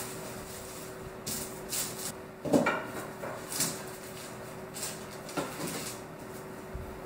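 Handling sounds: parchment paper rustling and a metal bread peel knocking on the countertop while a proofed loaf is turned out of its banneton. There are a handful of short rustles and knocks, the loudest about two and a half seconds in, over a steady low hum.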